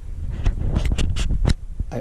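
A low rumble with about five sharp clicks and knocks in the middle of the stretch.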